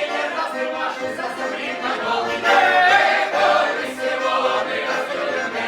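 A choir singing a cappella, many voices together in full harmony.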